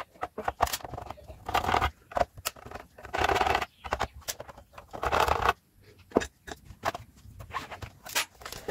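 Handling noise from a plastic-cased voltage stabilizer being moved and turned over: scattered clicks and knocks, with three short scraping sounds about two seconds apart.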